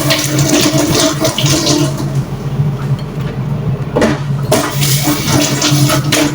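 Water running from a kitchen tap into a sink, in two spells with a short break between, over a steady low hum.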